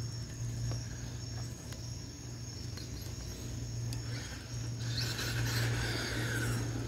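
Crickets chirping steadily in the night air over a low steady hum. About five seconds in, a louder rushing noise comes up and stays to the end.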